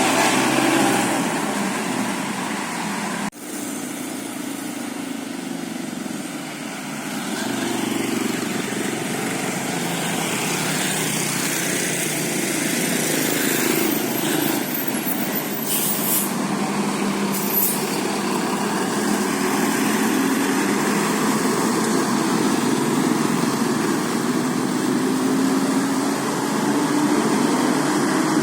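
Heavy road traffic, buses and trucks going by with their diesel engines running steadily and a hiss of air brakes. There is no horn melody.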